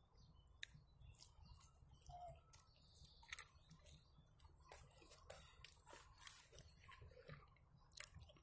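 Faint chewing of a fried meat-filled belyash: soft, wet mouth clicks and smacks scattered throughout, with one sharper click near the end.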